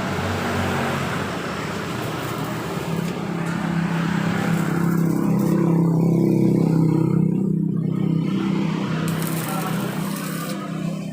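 A motor vehicle's engine running, a low steady hum that grows louder toward the middle and then eases off.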